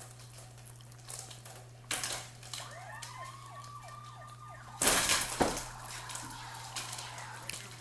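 A siren wailing, its pitch gliding up and sweeping repeatedly from about two to five seconds in. Sharp knocks cut in about two seconds in and, loudest, about five seconds in, over a steady low hum.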